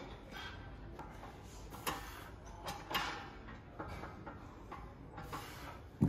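Scattered clicks and knocks from a glute-ham developer machine and padded plyo box as a man drops forward onto the box and pushes back upright, with a heavy low thump about six seconds in as he comes back up.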